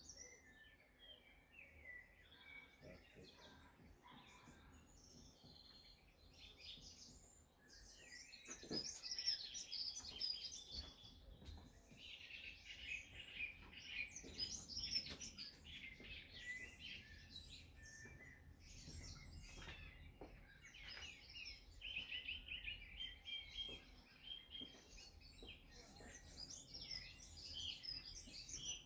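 Songbirds faintly singing and chirping in quick, overlapping twittering phrases, busier from about eight seconds in.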